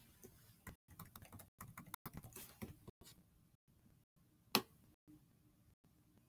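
Typing on a computer keyboard: a run of quick key clicks over the first three seconds, then a single louder click about four and a half seconds in.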